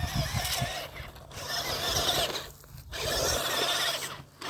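Four-wheel-drive RC truck's electric motor whining up and down in pitch as its tyres churn dirt, with gritty rubbing noise. The motor cuts out briefly three times.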